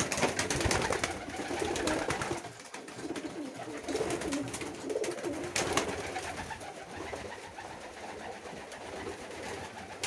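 Domestic fancy pigeons cooing in a small wooden loft, louder in the first few seconds, with a couple of sharp knocks.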